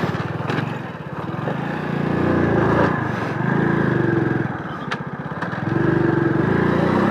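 Motorcycle engine running under the rider, its pitch and level rising and easing as the throttle is worked over rough, stony off-road ground, with a short click about five seconds in.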